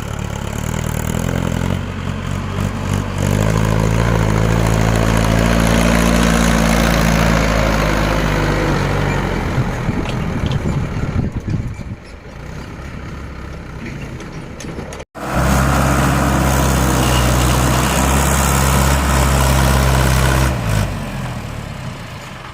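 Mahindra 555 tractor's diesel engine working hard under load, pulling a loaded trolley. It revs up in steps in the first few seconds and holds a steady, loud note, eases off about halfway, then after a brief break in the sound runs loud and steady again before easing near the end.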